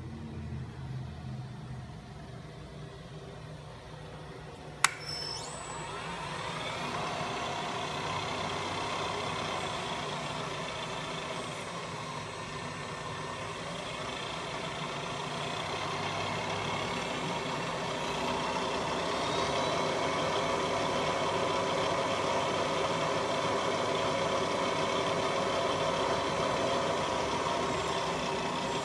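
Sharp LMV-50 knee mill's 3 HP spindle motor starting with a sharp click about five seconds in and spinning up. It then runs steadily, growing louder as the variable-speed dial raises the spindle from about 290 to 545 RPM.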